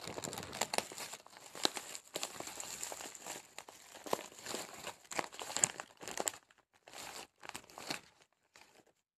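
Plastic packaging crinkling by hand: a black plastic courier bag and bubble wrap rustle and crackle with many sharp clicks. The sound is continuous for about six seconds, then comes in short separate bursts.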